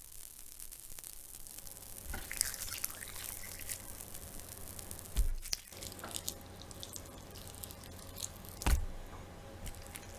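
Scattered drip-like clicks and crackles over a steady low hum, with two heavy low thuds, one about five seconds in and one near nine seconds.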